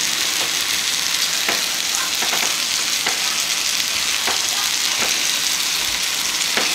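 Food sizzling steadily in a hot frying pan, with scattered pops and crackles.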